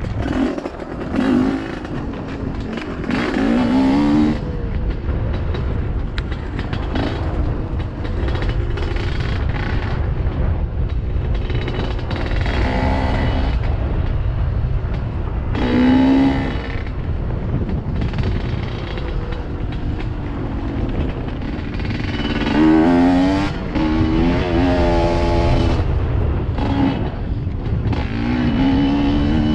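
GPX dirt bike engine running under throttle, revving up in repeated rising bursts and dropping back as the rider works through the trail.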